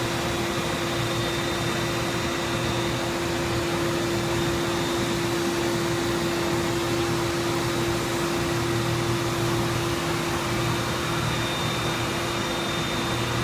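CNC machine running: a steady whirring hum with one strong held tone over a noise hiss, unchanging throughout.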